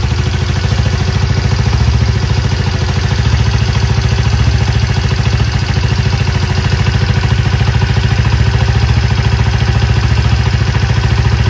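Air-cooled single-cylinder four-stroke engine of a freshly rebuilt Chinese 70 cc CD70-type motorcycle idling steadily with no throttle, a fast even putter. A light tick-tick comes from slightly loose tappets; otherwise the engine sounds healthy.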